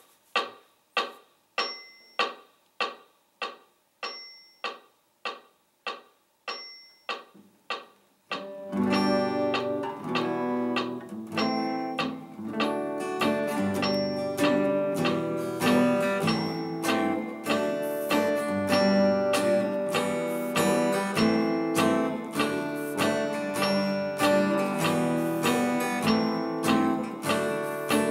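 A metronome clicking at 98 beats per minute, with an accented click every fourth beat. About eight and a half seconds in, a Takamine acoustic guitar joins, strumming a G, E minor, A minor, D chord progression in time with the clicks.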